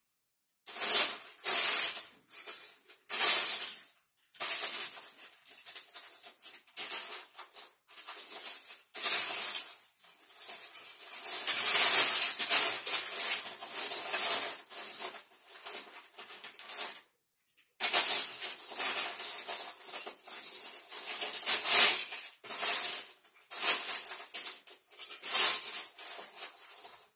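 Loose plastic Lego bricks rattling and clattering in irregular bursts as someone rummages through them by hand, looking for pieces.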